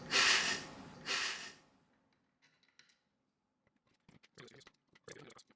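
Two short hissing noise bursts, then after a pause faint, quick light clicks and taps of small PC-building hardware being handled.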